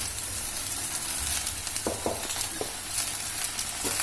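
Slit okra sizzling as it fries in oil in a pan, with a few short scrapes of the spoon stirring it.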